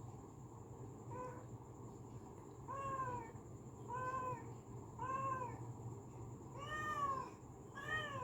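A domestic cat meowing repeatedly, about six short meows roughly a second apart, each rising and then falling in pitch, over a steady low hum.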